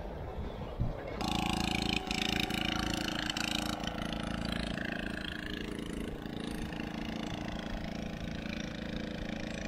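Steady drone of a small fishing boat's engine, starting about a second in.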